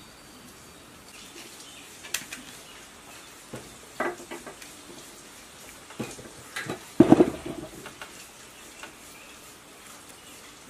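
Scattered knocks and clicks from handling a generator's cast-metal stator housing with its copper windings on a wooden workbench. The loudest is a cluster of clunks about seven seconds in, as the housing is turned and stood upright on the bench.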